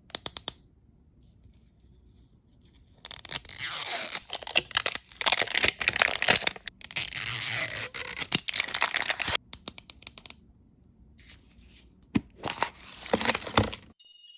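L.O.L. Surprise blind-bag packaging being torn open by hand, crinkling and tearing. A few sharp clicks come first. A long stretch of tearing starts about three seconds in, and a shorter burst follows near the end.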